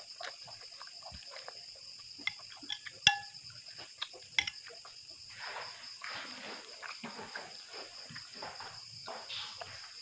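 Crickets chirring steadily in a fast pulse. A metal spoon clinks sharply against a ceramic bowl about three seconds in and again a second or so later, followed by soft close-up chewing sounds.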